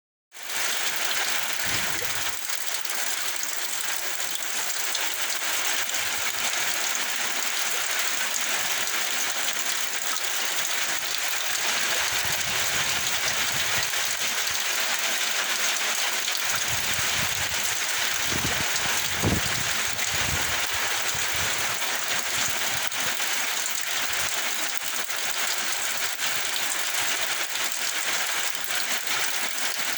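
Heavy rain pouring down in a steady, dense hiss, with a few low rumbles of gusting wind, mostly about two-thirds of the way through.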